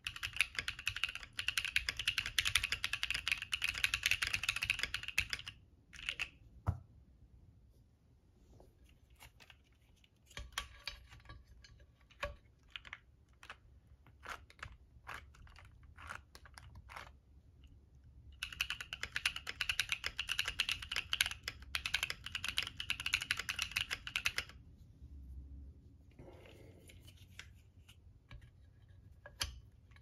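Bakeneko60 60% mechanical keyboard with NovelKeys Cream linear switches being typed on, a typing test of how the case sounds stock and with a polyfil layer dampening it. Two fast runs of keystrokes, one at the start and one past the middle, with slower, scattered key presses between and after.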